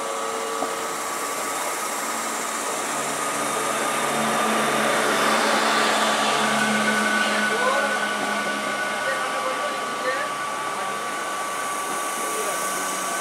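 Electric multiple-unit suburban train running past along the platform: a steady rush of wheels on rail with steady high electric whines from its traction equipment, growing louder toward the middle.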